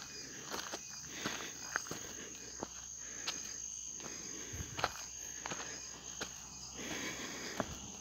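A steady, high-pitched insect trill, like crickets, runs under a hiker's footsteps, with irregular sharp clicks.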